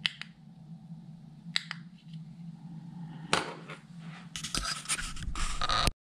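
Button of a small plastic Bluetooth remote shutter clicked twice, about a second and a half apart. Then a few seconds of scraping and rustling handling noise as it is put down, cut off abruptly near the end.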